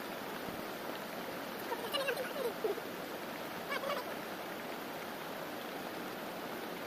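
Steady rushing water noise, with faint voices breaking through around two and four seconds in.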